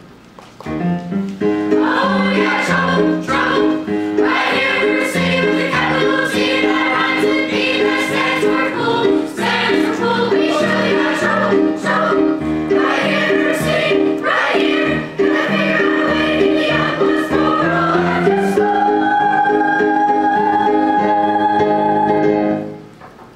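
A stage cast chorus of young voices singing a show tune together. It builds to one long held final chord that stops shortly before the end.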